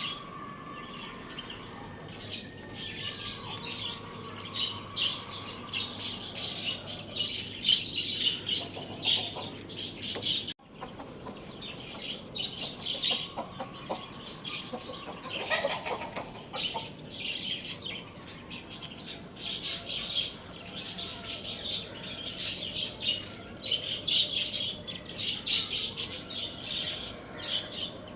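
Many small birds chirping densely and rapidly, a busy flock of high calls, with some wing flapping.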